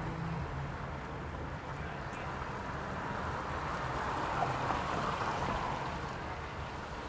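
Steady road and tyre noise of a car driving with a window open, with outside air coming in.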